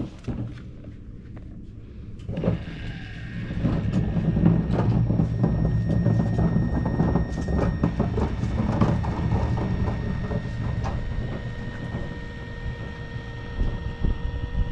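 Powered caulking gun running with a steady motor whine as it drives urethane adhesive out of the cartridge to lay the windshield bead, starting about two seconds in, with scattered clicks and knocks.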